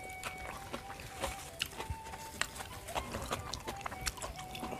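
Close-miked eating sounds: wet chewing and lip-smacking with irregular small crunches and clicks, several a second, as someone eats a meal of petai beans and rice with chili sambal.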